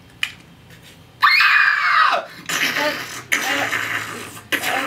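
Mouth-made sound effect standing in for a doomsday device: a high whistle-like tone about a second in that slides steadily down in pitch, then a couple of seconds of breathy hissing noise.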